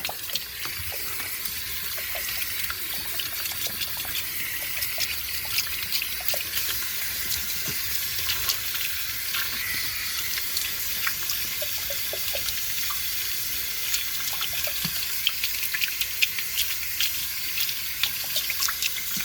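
Tap water running steadily into a sink while two bottles are rinsed off under it, with many small splashes and clicks as the bottles are handled in the stream.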